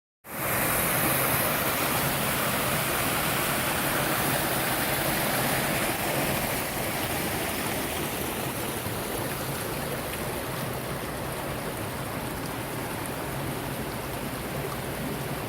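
Waterfall pouring down a normally dry desert wash, fed by snowmelt and rain runoff: a steady rush of water that eases slightly after about six seconds.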